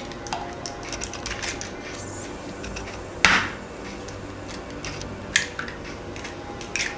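Eggs being cracked against the rim of a mixing bowl: a few sharp knocks, the loudest about three seconds in and another about five seconds in, among small clicks and kitchen clatter.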